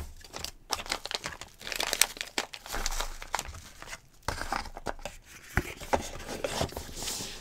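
Crinkling of a clear plastic knife bag and rustling of a cardboard Microtech knife box and paper insert card being handled. Scattered light knocks and clicks come as the box is packed and its lid is put on.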